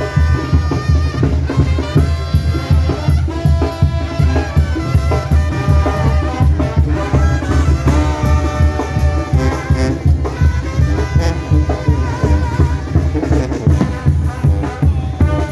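Mexican banda (brass band) music: brass and trumpets playing a melody over a steady, rapid drum and bass beat.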